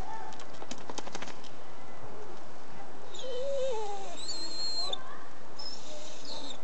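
A dog making a few soft, wavering whines between its howls, with high bird chirps behind it and a quick run of light clicks about a second in.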